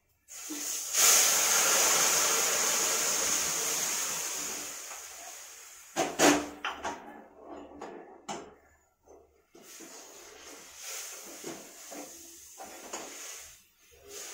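Lentil dal hitting hot tempering oil (fried garlic, dried chilli, nigella seeds and turmeric) with a loud sizzle that starts suddenly and fades over about five seconds. Then a metal ladle knocks and scrapes against the pot a few times while stirring, over a fainter sizzle.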